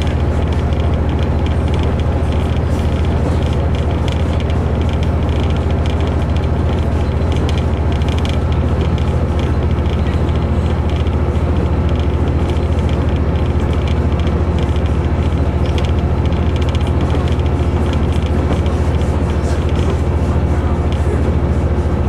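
Interior sound of a KiHa 121 diesel railcar under way: the diesel engine running steadily with a low hum under the rolling noise of the train.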